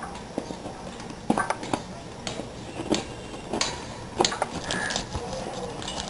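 A parcel being opened and its packaging handled: irregular clicks, taps and crinkles, a few sharper ones about a second in and again past the middle.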